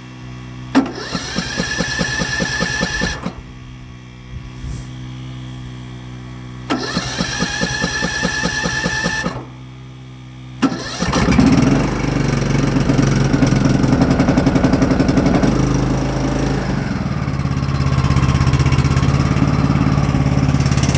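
Riding lawn mower's engine on its first start of the season, cranked by the electric starter with a whining starter motor: two cranks that fail to catch, then it fires on the third about eleven seconds in and settles into steady running.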